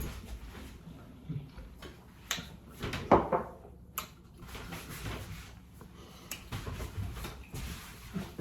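Scattered knocks and clicks of a bowl and utensils being handled while eating. The loudest knock comes about three seconds in, with sharp clicks shortly after and again later.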